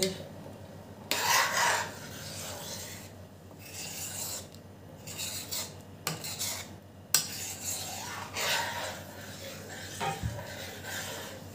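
Stainless steel ladle stirring and scraping through a pan of thick rice kheer, in uneven strokes a second or two apart.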